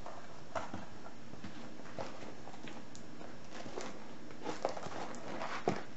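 A parcel being cut open with a small penknife: faint scrapes and small clicks, with a few sharper taps near the end.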